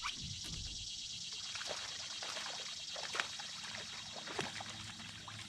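Water splashing and dribbling in short irregular bursts as a hooked largemouth bass is fought to the boat, over a steady high hiss.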